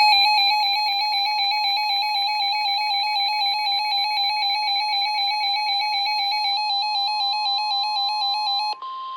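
Emergency Alert System attention signal: a loud electronic alert tone that warbles rapidly between two pitches. A steady higher tone joins it about two-thirds of the way in, and the warble cuts off near the end.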